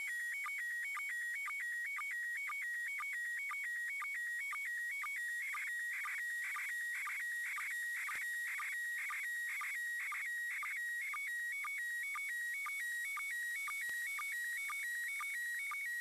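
Slow-scan television (SSTV) image signal from the International Space Station, received by FM radio on 145.800 MHz: a warbling electronic tone stepping between two high pitches, cut by short lower sync beeps at a steady rhythm, over a faint hiss of radio noise.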